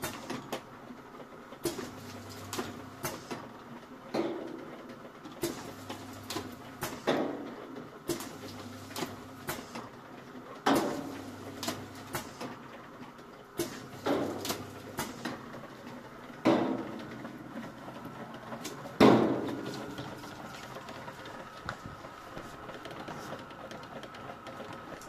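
AS-150C automatic labelling machine running: a low motor hum cycling on and off about every two seconds, with clicks and knocks from the conveyor and label applicator as bottles go through. A single louder knock comes about three quarters through, after which the hum stops and only a faint steady whine is left.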